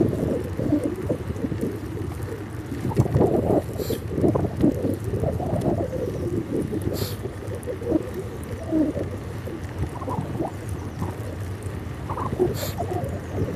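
Wind buffeting the microphone of a camera riding along on a moving bicycle: an uneven, gusting low rumble, with three short sharp ticks spread through it.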